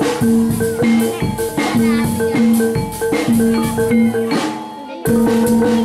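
Upbeat music: drums with a repeating melody over them, with a short drop in loudness near the end before the beat comes back in.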